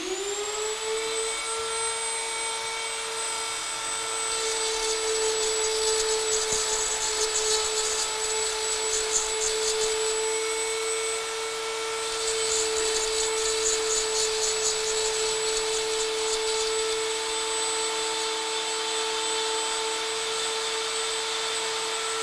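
Hanging flex-shaft rotary tool switched on, spinning up to a steady whine. From about four seconds in, a small burr grinds into antler, adding a gritty rasp over the motor that comes and goes as the cut is worked.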